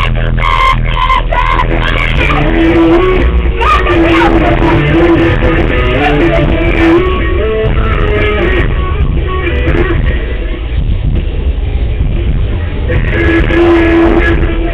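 Loud rock music with guitar and a sung melody, continuous.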